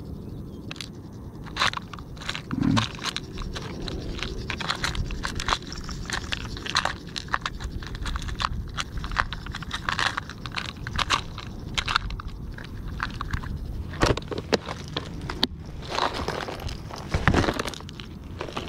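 Fingers rummaging through a clear plastic compartment tackle box, small lead split-shot sinkers and metal tackle clicking and rattling against the plastic, with a louder clatter near the end.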